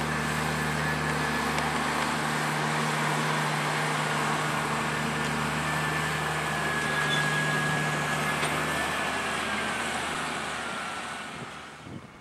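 Fendt 820 Vario tractor's six-cylinder diesel engine running steadily under load as it pulls a slurry tanker and manure injector past, with a faint high whine over it. The sound fades away near the end.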